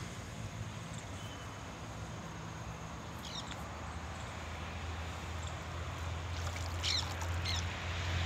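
A low motor hum that grows louder toward the end, over a steady outdoor noise bed, with a few short bird chirps about three seconds in and again near the end.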